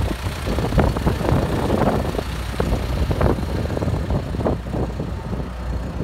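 John Deere 450J LT crawler dozer's diesel engine running, a steady low drone with uneven rattling over it.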